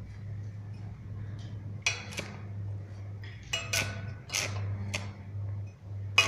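Welding machine's transformer humming steadily while a stick electrode is tapped against the metal to strike an arc, giving several short, sharp crackles that break off at once; the loudest is near the end. The arc keeps catching and going out, typical of a beginner struggling to strike and hold it.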